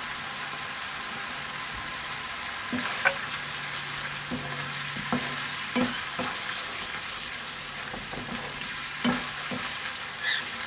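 Onion-tomato masala paste with freshly added ground spices sizzling in a frying pan. From about three seconds in, a spatula stirs it, knocking and scraping against the pan several times.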